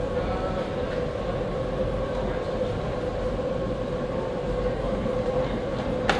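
Steady mechanical hum and rumble with a constant mid-pitched whine, the running noise of working model machinery, and one sharp click near the end.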